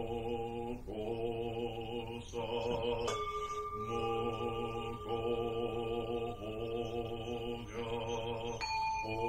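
A man chanting a Zen Buddhist liturgy in Japanese on one steady pitch, in short phrases with brief breaths between. A bowl-shaped temple bell is struck about three seconds in and rings on under the chant for several seconds. A bell is struck again near the end.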